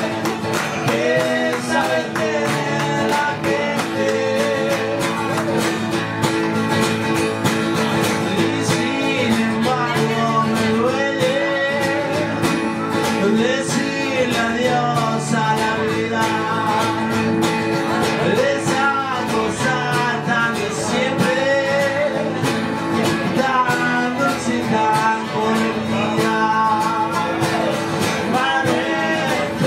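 Two acoustic guitars playing a milonga, with a man's voice singing over them.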